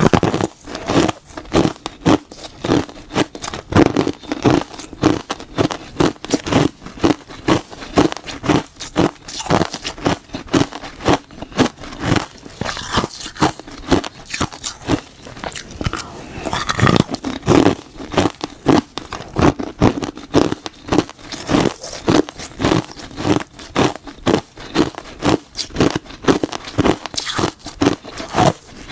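Ice being bitten and chewed close to the microphone: a steady run of sharp, crunchy cracks repeating a few times a second.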